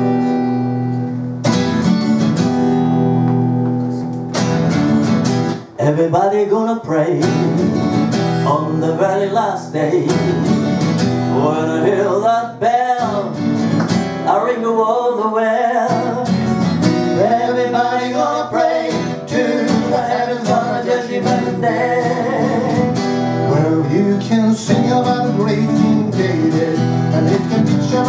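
Two acoustic guitars strumming chords in a live folk song, with singing coming in about six seconds in and carrying on over the guitars.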